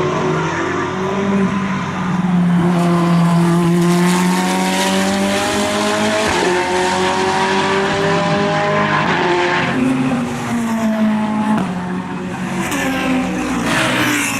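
Ferrari 488 GT3 Evo race car's twin-turbo V8 running hard on track, its pitch climbing and then dropping back several times as it shifts up through the gears.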